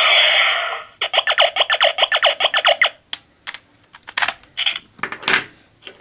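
Sound effects from the Gabutyra De Carnival toy's speaker, set off by an inserted Jyudenchi: a loud electronic sound ends about a second in. It is followed by a rapid run of electronic pulses, about ten a second, lasting some two seconds. A few scattered plastic clicks and knocks follow as the Jyudenchi are handled.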